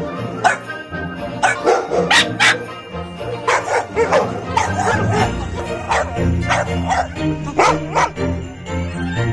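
Dogs barking again and again, among them a boxer and a big white spitz-type dog, over Christmas music with jingle bells.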